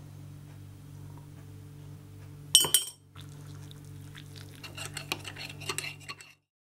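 A spoon clinks sharply against a ceramic mug as drinking-chocolate powder goes in. Then kettle water pours into the mug, with the spoon rattling and clinking in it, over a steady low hum. The sound cuts off abruptly a little after six seconds.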